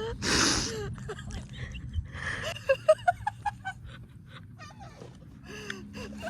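Seagulls calling: a quick run of short, high calls about halfway through, with scattered calls around it. A brief rush of noise comes right at the start.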